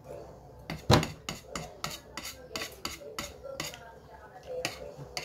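Eating sounds close to the microphone while eating by hand: a quick run of sharp clicks and taps, about three a second, with one louder knock about a second in. The clicks thin out over the last second or two.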